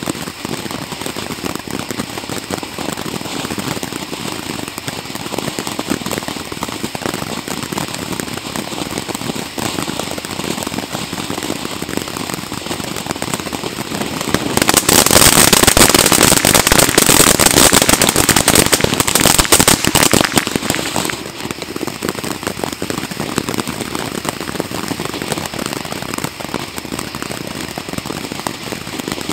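Pyro Planet 'Prismatic' 200-gram fountain firework burning with a steady hissing, crackling spray of sparks. About halfway through it turns louder and brighter, with dense crackling, for about six seconds, then settles back to the steady hiss.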